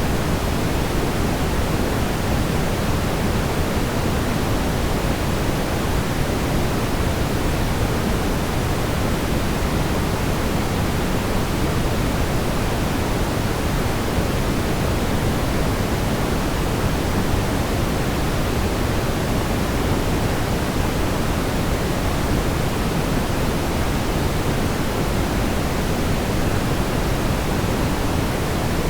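Steady, smoothed brown noise: an even, deep rushing hiss, strongest in the low end and thinning out toward the highs, with no changes or events.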